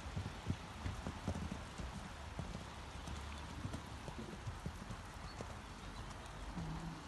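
Hoofbeats of a horse cantering on a sand arena surface, heard as dull thuds in an uneven rhythm.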